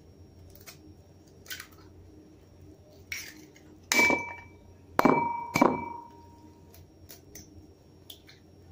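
Eggs knocked against the rim of a mixing bowl to crack them: a few sharp clinks with a brief ringing tone. The loudest two come close together about five seconds in.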